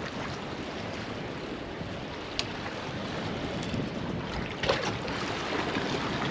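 Wind buffeting the microphone over the sound of the sea around a drifting boat, with a sharp click about two and a half seconds in and a louder knock a couple of seconds later.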